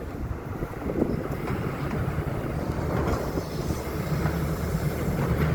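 Dump truck's engine running with a steady low rumble as it drives off, the low hum growing stronger about four seconds in.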